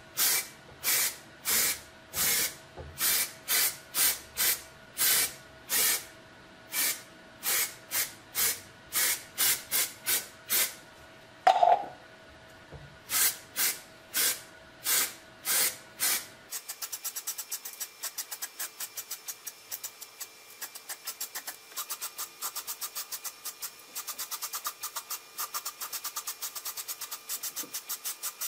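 Aerosol spray can of red paint hissing in short bursts, about two a second. About halfway through there is a brief louder noise. Later come quicker, fainter bursts.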